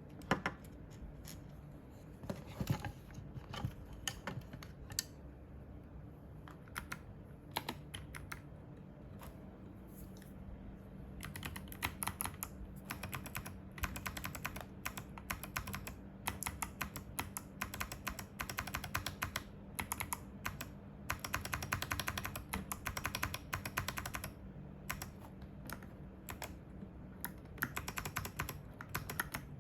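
Rapid, uneven clicking of small plastic switches in quick runs, sparse at first and densest through the middle, over a low steady hum.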